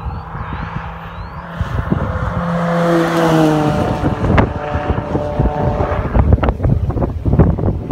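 Peugeot 206 GTI 180's 2-litre four-cylinder engine running hard as the car drives past at speed. Its note is loudest and drops in pitch as it goes by about three seconds in, then fades as it pulls away. Wind buffets the microphone throughout.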